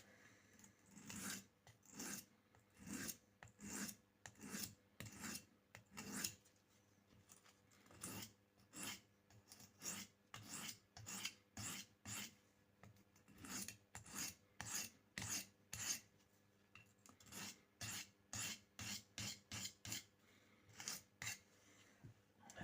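Steel knife blade stroked across an oiled sharpening stone: short, repeated scraping strokes, about one to two a second, with a brief pause about six seconds in.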